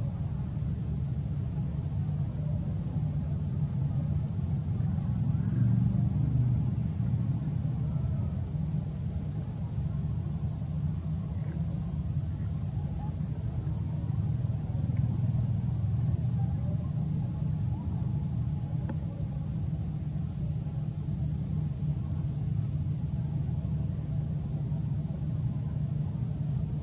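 A steady low rumble, swelling a little about six seconds in.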